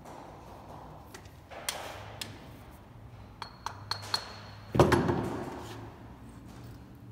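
Metal alternator parts and hand tools clinking on a workbench: a few light metallic clicks and pings, some with a short high ringing note, then a heavier metal knock about five seconds in, the loudest sound.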